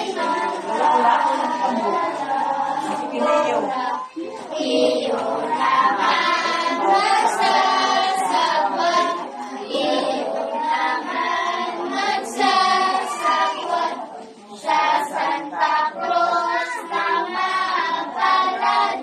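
A group of young girls singing a song together in unison, with brief breaks between phrases.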